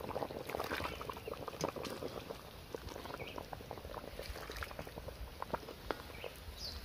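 Coconut-milk fish curry bubbling in a wok, a steady mass of small pops, with scattered sharper clicks of a ladle against the metal as curry is scooped out.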